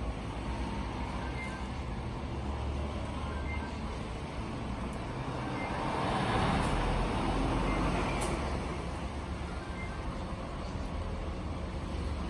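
Steady low rumble of road traffic, swelling and fading as a vehicle passes about halfway through.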